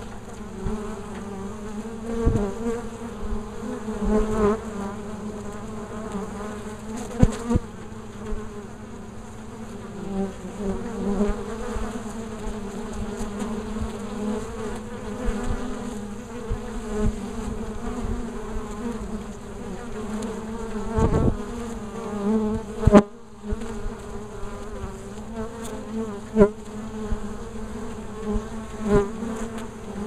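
Honeybees buzzing at a hive entrance: a steady, wavering hum of many wings as workers fly in and out, with a few short knocks now and then.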